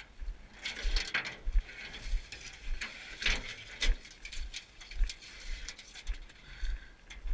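Footsteps of a person carrying a canoe overhead on a trail, about two steps a second. The canoe and its yoke click and creak in time with the steps.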